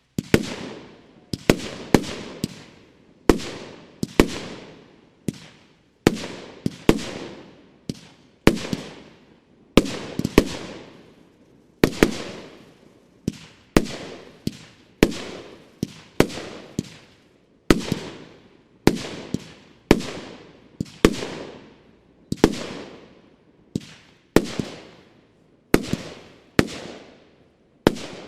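Bonfireworks Great Strobe, a 30 mm 25-shot firework battery (cake), firing shot after shot at about one a second. Each shot is a sharp report followed by a hiss that fades over about a second.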